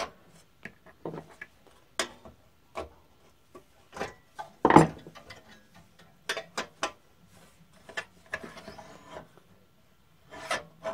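Handling noise from a scroll saw's tilting tabletop as it is moved and adjusted by hand, with the saw switched off: scattered clicks, knocks and scraping, with one louder knock about five seconds in.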